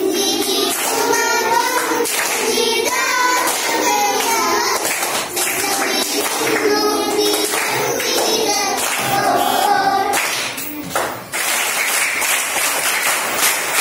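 A group of children singing a Malayalam poem together to a folk-song tune, clapping their hands in time. About ten seconds in the singing stops and gives way to clapping.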